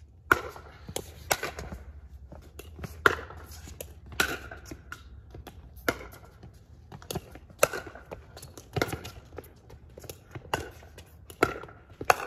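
Pickleball rally: paddles striking the hard plastic ball with sharp pocks, about one a second and some much louder than others, with lighter taps between.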